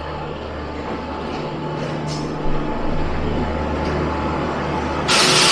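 An Indian Railways electric locomotive rolling slowly into the platform at the head of a passenger train, with a steady low hum and rumble. A single knock comes about halfway through, and near the end a sudden loud hiss starts.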